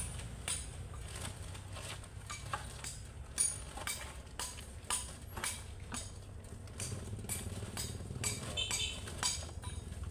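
Crushed gravel stones clinking and rattling as they are scooped into sacks, in irregular sharp clicks about twice a second. A low vehicle engine rumble runs underneath, stronger at the start and again about seven seconds in.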